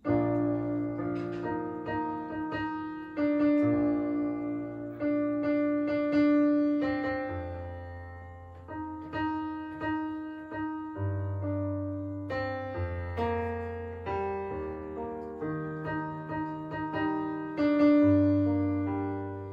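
Background piano music: slow struck chords over held low bass notes, starting suddenly.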